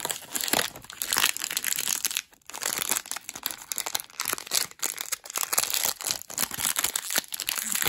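A small blind-box wrapper bag being crinkled and torn open by hand: a dense, continuous crackling with a short pause about two seconds in.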